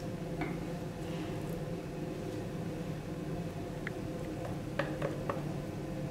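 Boiled egg pushed through a wire-grid egg dicer over a plastic bowl: soft squishing with a few light clicks and taps, three close together near the end, over a steady low hum.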